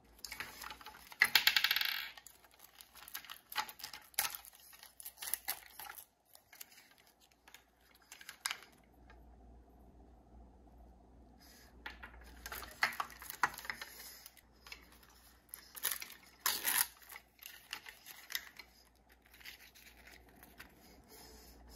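Hard plastic Mini Brands capsule segments and miniature toy products clicking and tapping as they are handled, with a louder scraping rattle about a second in and a quieter stretch in the middle.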